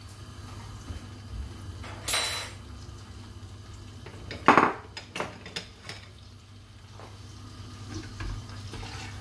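A few clanks and knocks of an aluminium karahi and kitchen utensils on a gas hob. A scraping clank comes about two seconds in, and the loudest knock about four and a half seconds in, followed by a couple of lighter taps, all over a low steady hum.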